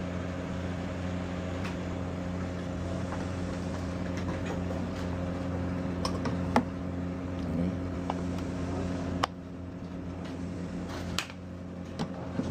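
A steady machine hum with a few sharp clicks and knocks from the rice cooker's metal inner pot being handled. The hum drops a little about nine seconds in.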